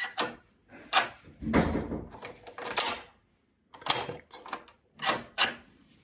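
Thumb turn of a newly fitted euro lock cylinder being turned back and forth, the mortice lock's bolt and latch clicking and clunking as they throw and retract. There are about eight sharp clicks, with one longer sliding stroke about a second and a half in.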